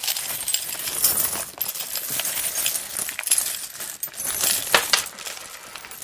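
Mixed metal coins pouring from a plastic bag into a glass bowl: a continuous jingling clatter of coins striking each other and the glass, with one sharper clink near the end.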